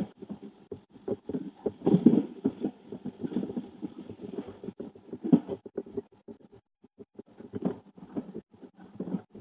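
A fork scraping and mashing baked potato on a plate in short, irregular strokes, busiest in the first few seconds and thinning out later.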